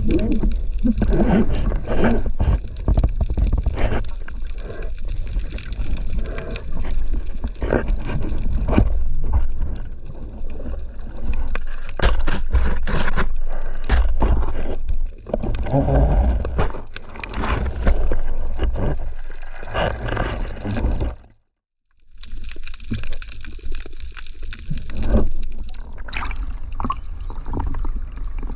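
Water gurgling and sloshing around an underwater camera during a spearfishing dive, with many scattered knocks and clicks. The sound cuts out briefly about three quarters of the way through.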